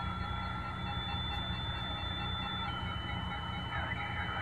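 CRT SS 6900N CB radio on lower sideband between transmissions: steady band static with a thin, steady heterodyne whistle that drops slightly in pitch about two-thirds of the way through, over a low hum.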